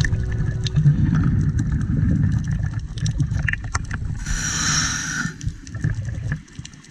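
Scuba diver breathing through a regulator, heard underwater: a low gurgling rumble of exhaled bubbles, then about a second of inhalation hiss midway, with scattered small clicks.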